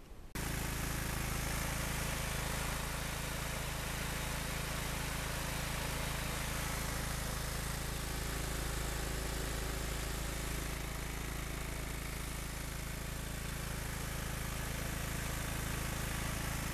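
Kohler engine on a Craftsman lawn tractor running steadily at an even speed, now running well with its new fuel cut-off solenoid fitted. The sound cuts in suddenly about half a second in.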